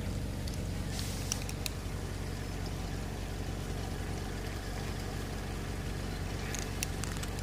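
Steady low motor hum, like an engine idling, with a few faint sharp clicks about a second in and again near the end.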